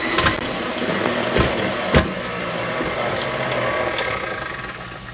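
KitchenAid Classic stand mixer's motor running steadily, its flat beater working thick divinity candy in a steel bowl, with a couple of sharp knocks. The hum fades away near the end.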